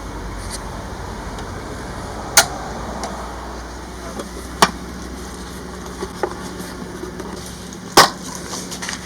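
Three loud, sharp knocks, at about two and a half, four and a half and eight seconds in, with a few fainter clicks between them, over a steady low hum.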